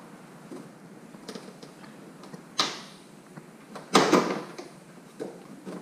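Plastic deflector panel of a 2018 Honda Gold Wing being twisted off, its clips letting go with a few sharp snaps, the loudest about four seconds in, among small plastic clicks and creaks.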